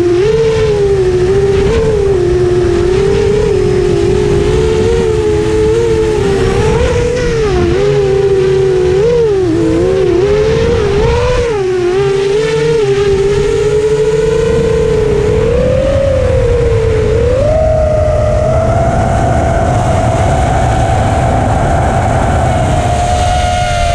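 Multirotor drone's electric motors and propellers heard from its own onboard camera: a steady buzzing whine whose pitch wavers constantly with throttle, then steps up and holds higher about seventeen seconds in as it climbs.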